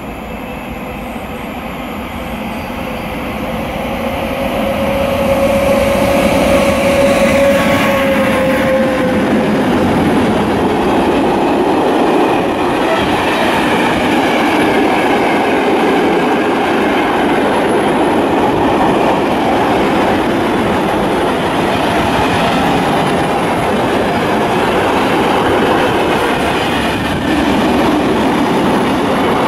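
Freight train of car-carrier wagons passing close by on the near track: the noise builds over the first few seconds as it approaches, with a steady tone for several seconds, then settles into a loud, continuous rolling of wagon wheels on the rails as the long rake of wagons goes by.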